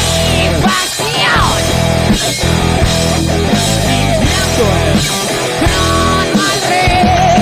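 Rock band playing an instrumental passage of the song, with electric guitar, bass and drums.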